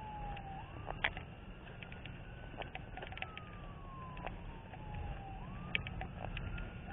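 Faint emergency-vehicle siren in a slow wail, its pitch rising and falling about every five seconds, over a low rumble with scattered sharp clicks.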